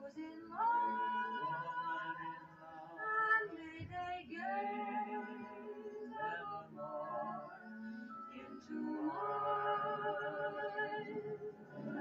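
Show-tune singing in long held notes with vibrato over orchestral accompaniment, played back through a TV speaker.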